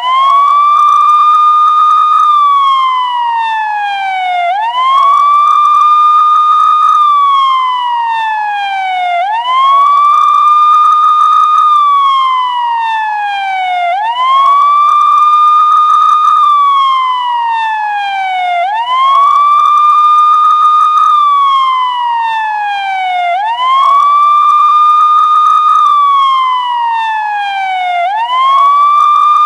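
Police car siren sounding a slow wail: each cycle climbs quickly, holds its high note for about two seconds, then slides slowly back down, repeating about every four and a half seconds.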